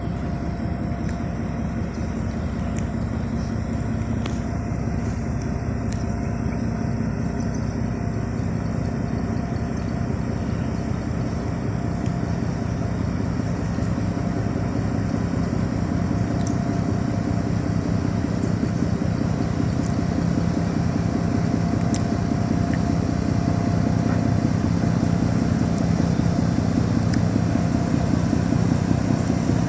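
Boat engine running steadily, a low hum that grows gradually louder.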